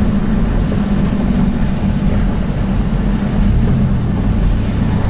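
Car engine and road noise heard from inside the moving car's cabin: a steady low hum over a rushing haze, with a second, deeper hum joining about three and a half seconds in.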